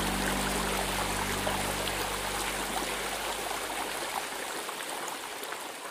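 Creek water running over rocks, a steady rushing and trickling. Low, held music tones fade out about two seconds in, and the water sound itself fades down near the end.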